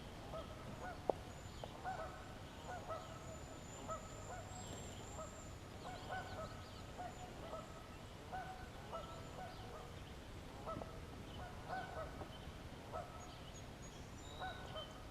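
Birds calling: short, repeated calls all through, often one or two a second, with fainter high chirps above them.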